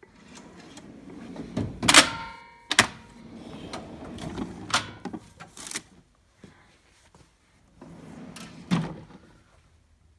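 Steel tool box drawers sliding on their runners and knocking shut, with the metal tools and parts inside clattering. The loudest knock comes about two seconds in and rings briefly; another drawer slides and knocks near the end.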